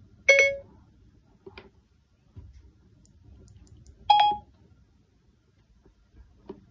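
Siri's electronic chime from an iPhone, sounding about a quarter second in after the "Hey Siri" call, and a second, higher-pitched chime about four seconds in. Faint clicks lie between them.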